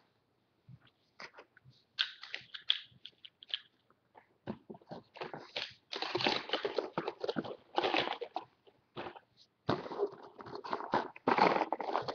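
Plastic toy packaging and Beyblade parts being handled: crinkling and clicking in irregular spells of a few seconds, with short quiet gaps between them.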